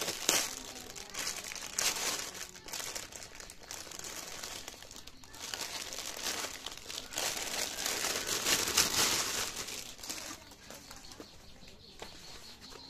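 Thin clear plastic bag crinkling and rustling as hands open it and pull rolled t-shirts out. It is loudest around the start, about two seconds in and about eight to nine seconds in, then dies down near the end.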